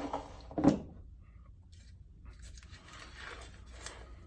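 Robot parts being handled on a work surface: a sharp knock about half a second in as a part is set down, then a couple of seconds of rustling and scraping as the parts are moved about.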